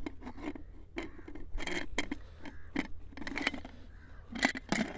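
Metal pressure cooker lid being fitted and twisted shut, scraping and clicking against the pot's rim again and again.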